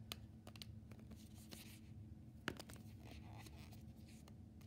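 Faint handling noises, soft rustling and scraping, with one sharp click about two and a half seconds in, over a low steady hum.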